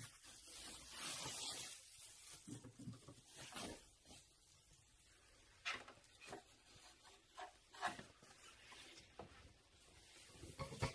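Plastic sheeting and bubble wrap rustling and crinkling as they are pulled off a digital piano, with a fabric dust cover sliding off. Several sharper crackles stand out along the way.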